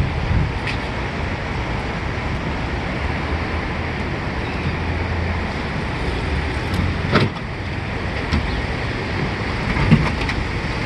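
Steady low rumble of motor-vehicle noise, with a sharp click about seven seconds in and a softer knock near the end.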